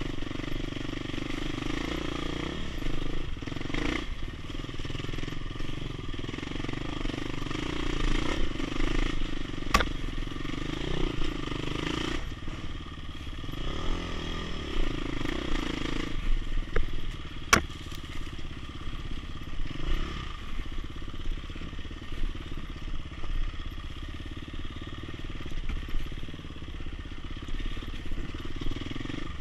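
Dirt bike engine running while riding off-road, the throttle rising and falling through the ride. Two sharp knocks stand out, one about ten seconds in and another a few seconds before the end of the middle stretch.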